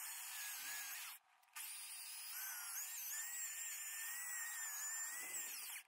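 Power drill spinning a 120-grit sanding pad against an aluminium engine cover, scouring off oxidation; the motor's whine wavers in pitch as it loads and eases off. It cuts out briefly about a second in.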